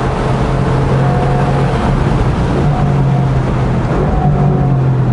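Mercedes-AMG GT R Roadster's twin-turbo V8 holding a steady high-speed drone on full throttle at around 230 km/h, heard from the open cockpit with a broad rush of wind and tyre noise over it.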